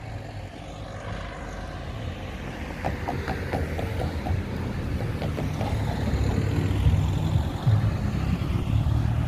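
Stuttgart Stadtbahn light-rail train approaching, a low rumble growing steadily louder, with a short run of light, rapid ticks a few seconds in.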